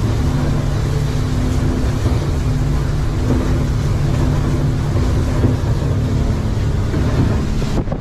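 An engine running steadily with a constant low hum, wind buffeting the microphone; it cuts off suddenly just before the end.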